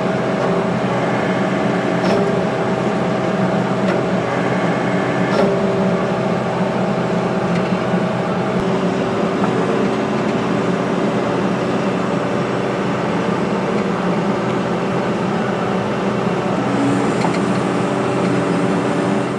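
Takeuchi TB285 mini excavator's diesel engine running steadily while the boom and bucket are worked, heard from the operator's seat. A few shifts in the tones come as the hydraulics take load.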